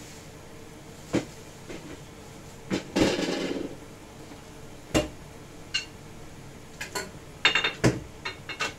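Kitchenware being handled on the counter beside the stove: single sharp knocks and clinks of utensils and dishes, one followed by a brief clatter about three seconds in, and a quick run of clinks near the end.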